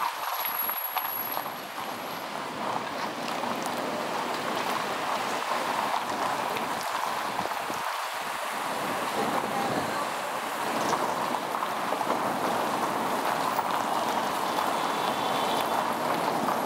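Steady hiss of tyre and wind noise from a car driving along a city street, heard through a camera mounted on the car's roof, with air rushing over the microphone.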